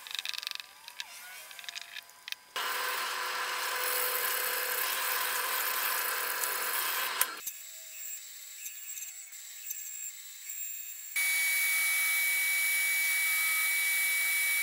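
A string of woodshop tools. First come a few light clicks of a screwdriver working on a small wooden part, then a loud power tool runs for a few seconds. After that a band saw runs more quietly as it cuts a small piece of wood, and a disc sander runs steadily with a high whine against a small wooden block, stopping abruptly.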